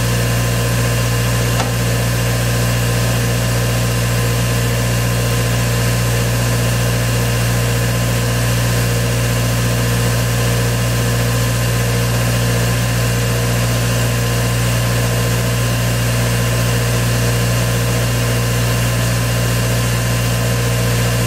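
Engine-driven air compressor running steadily at idle: a constant drone with a strong low hum and several steady higher tones, no change in pitch or level.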